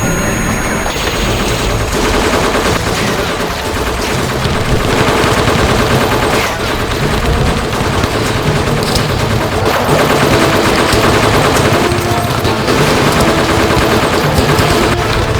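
Rapid automatic gunfire sound effects, dense and continuous, laid over the blaster fight.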